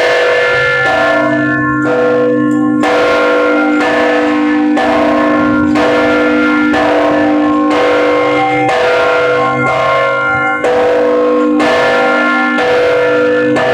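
Church bells of St John's Co-Cathedral ringing together at several pitches, struck about once a second, each stroke ringing on into the next.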